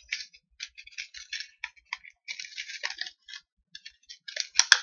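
Clear plastic packaging crinkling and crackling in rapid irregular bursts as it is handled and pulled open by hand, with one sharp snap near the end, the loudest sound.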